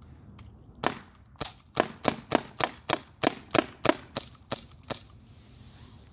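Umarex Glock 19 Gen 3 CO2 BB pistol firing about a dozen rapid shots, roughly three a second, each a sharp crack, then stopping about five seconds in.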